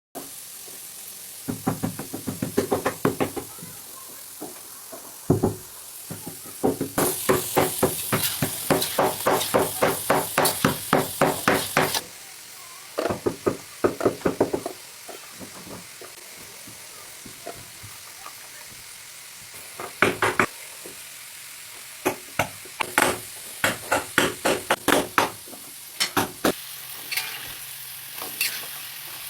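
A metal spatula clattering and scraping rapidly against a pan while food sizzles in hot oil, in several bouts of quick strokes separated by stretches of plain sizzling. The longest, busiest bout runs for about five seconds.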